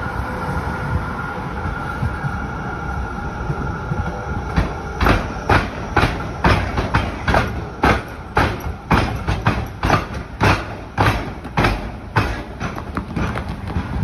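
Melbourne B-class articulated tram crossing a tram square over railway tracks. A faint steady whine gives way, about four and a half seconds in, to a run of sharp clacks, roughly two a second, as its wheels strike the gaps where the tram rails cross the train rails.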